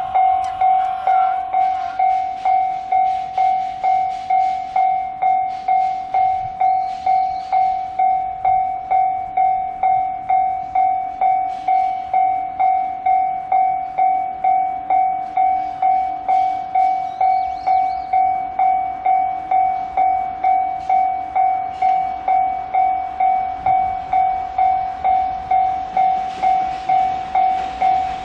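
Electronic railway level-crossing warning bell ringing, one steady ding repeated about twice a second. Beneath it, faint clicking from a freight train's wheels passing over the rail joints.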